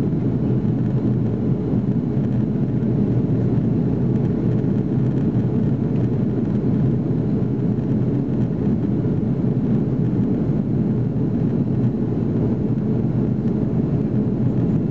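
Steady low cabin noise of an Airbus A330-343 in flight, heard from a passenger seat: the hum of its Rolls-Royce Trent 700 engines blended with rushing airflow, unchanging throughout.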